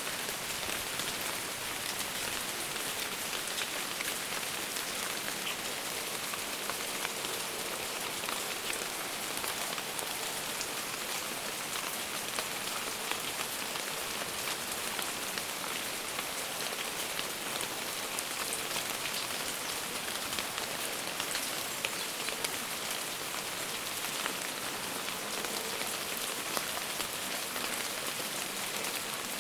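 Steady rain falling: an even hiss of many small drop ticks that holds at one level throughout.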